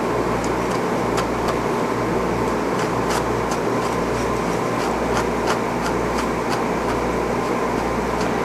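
Steady whirring hum of a fan or motor running in the room, with quick light ticks about two or three a second from a small brush flicking through Angora rabbit wool.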